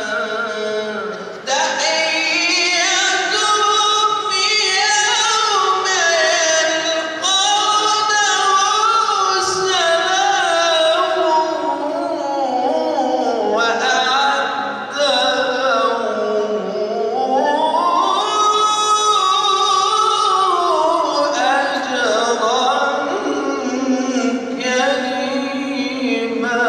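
Melodic Quran recitation (tilawah) by a male reciter into a microphone: long, drawn-out ornamented phrases that rise and fall in pitch, with brief breaths between them. In the second half one phrase climbs high and falls back.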